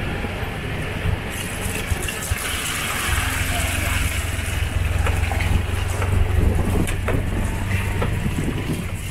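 Vehicle driving slowly over a rough dirt-and-gravel trail: a steady low engine hum that grows stronger about three seconds in, under a constant rumble of tyres on the track and a few small knocks from bumps.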